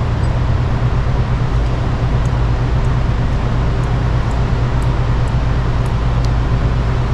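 Steady low machine hum with a constant drone, and a few faint light clicks.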